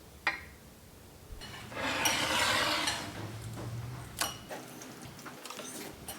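Kitchen utensils and dishes being handled while food is prepared. There is a light clink, then about two seconds of louder scraping and rustling, then a few sharp clinks.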